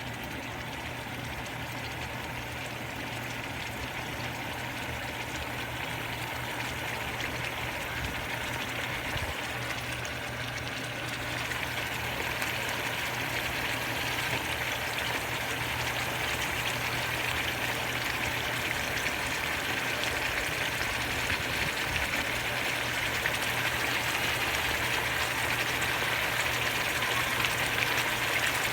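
Chicken breast frying in a pan: a steady sizzle that grows gradually louder, over a low steady hum.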